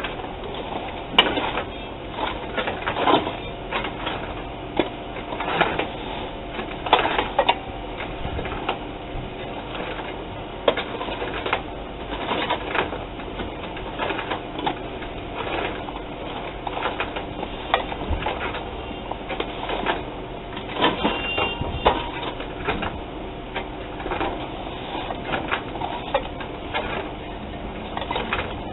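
Electric gear-motor-driven brick-making machinery running: a steady motor tone with frequent irregular metal clanks and knocks as the semi-dry sand-cement mix is handled.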